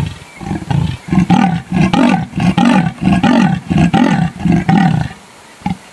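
Leopard giving its sawing call: a rapid, rhythmic series of rasping grunts that stops about five seconds in.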